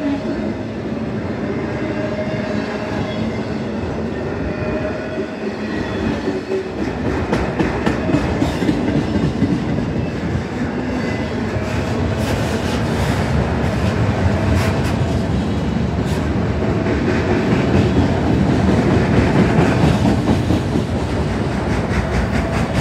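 Freight train of multilevel autorack cars rolling steadily past, steel wheels rumbling and clicking over the rail joints.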